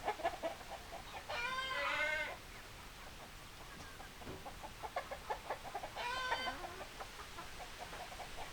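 Chickens clucking in a run of short notes, with two louder drawn-out calls about a second long, one near the start and one past the middle.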